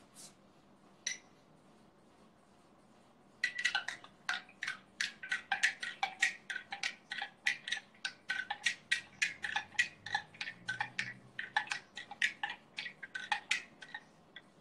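A metal spoon stirring in a drinking glass, clinking against the glass about three or four times a second, each clink ringing briefly. The clinking starts about three and a half seconds in and keeps up until near the end.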